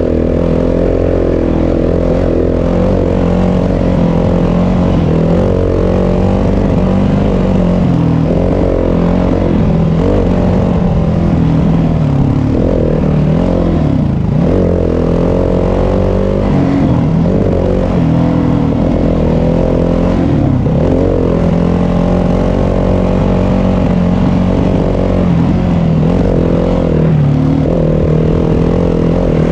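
Yamaha WR250F dirt bike's four-stroke single-cylinder engine running under way, its pitch rising and dipping again and again as the throttle is rolled on and off along the trail.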